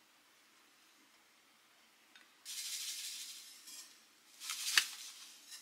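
Granulated sugar pouring into a frying pan, a dry grainy hiss that starts about two and a half seconds in and lasts over a second, then a shorter second pour ending in one sharp tap.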